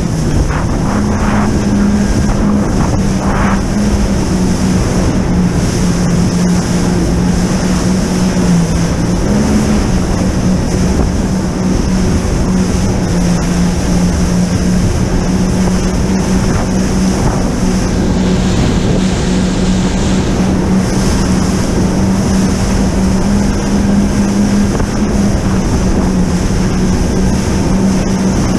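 Jet ski engine running steadily at speed, holding a nearly constant pitch with small wavers, over water and wind noise.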